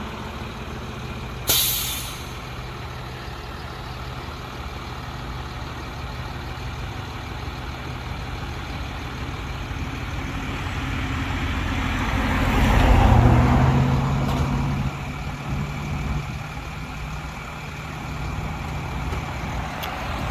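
Motor vehicle sounds: a steady engine hum, a short sharp air hiss about one and a half seconds in, and a vehicle getting louder and then fading, loudest about thirteen seconds in.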